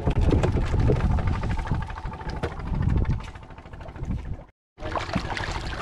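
Wind buffeting the microphone in an open boat, with many small clicks and rustles as a nylon gill net is hauled in by hand. The sound cuts out briefly about four and a half seconds in.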